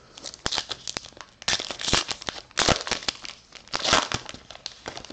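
A baseball card pack's wrapper being torn open and crinkled by hand: a crackling series of rips, three louder ones about a second apart from around two seconds in.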